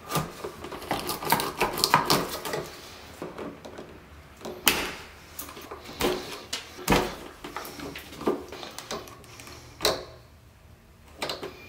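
Hand-tool and wire-handling noises at a wall electrical box: gloved hands with pliers and wire strippers working stiff Romex conductors, giving a scatter of clicks, taps and scrapes with rustling between, and a couple of sharper knocks around the middle.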